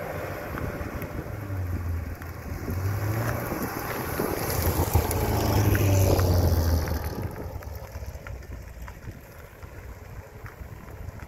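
Chevrolet Corvette C7 Grand Sport's 6.2-litre V8 breathing through long-tube headers and an off-road X-pipe, driving past: a deep exhaust note that grows to its loudest about five to seven seconds in, then fades as the car pulls away.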